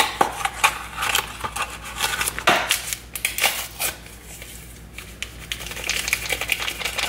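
Paper and cardboard packaging crinkling and tearing as a Jell-O box and its inner powder packet are opened, then the packet rustling as the dry gelatin powder is shaken into a stainless steel bowl. It comes as a run of quick crackles and sharp clicks, quieter for a moment about halfway through.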